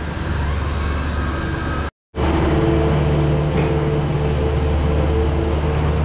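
Skid-steer loader's engine running steadily at a constant speed. About two seconds in the sound cuts out for a moment, then comes back louder and closer while the bucket pushes wet manure and bedding.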